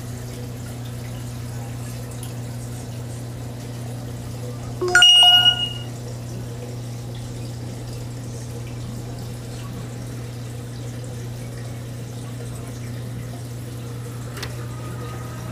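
Steady low hum and water flow from a reef aquarium's pumps. About five seconds in, a short bell-like chime rings out, louder than the hum, for under a second.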